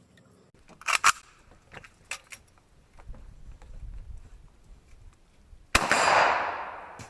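A few light clicks, then about three-quarters of the way through a single gunshot sound effect of a toy AK-47 rifle: a sharp bang whose hiss trails off over about a second.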